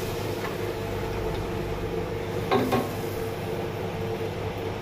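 Steady low mechanical hum with a light hiss, with one short sound about two and a half seconds in.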